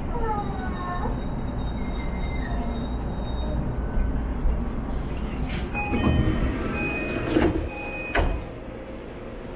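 Electric commuter train standing at a platform with its doors open, a steady low hum underneath. From about six seconds in, a short repeated door chime sounds and the sliding doors close with two or three thumps; after the last, about eight seconds in, it is quieter.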